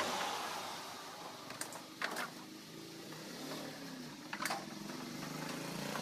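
Two sharp knocks, about two seconds in and again after four seconds, from the top-loading washing machine's plastic tub being handled, over a steady background noise.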